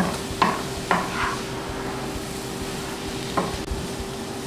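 Vegetables and chicken sizzling in a frying pan as they are stirred, with a utensil knocking against the pan four times.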